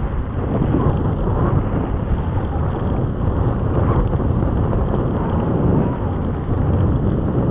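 Wind buffeting the camera microphone while riding a bicycle: a steady, loud low rumble with no clear tones.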